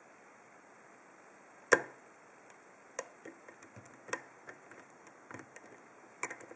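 Light metallic clicks and ticks of a hook pick lifting the pin stacks in a stainless steel Lockwood 334C45 padlock held under tension. One sharper click comes about two seconds in, then scattered fainter clicks at uneven intervals.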